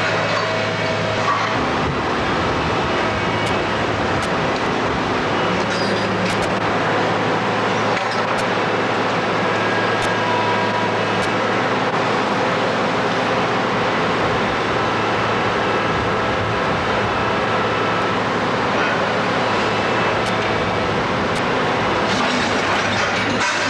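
Heavy demolition machinery running steadily: a continuous engine hum with a few faint clicks.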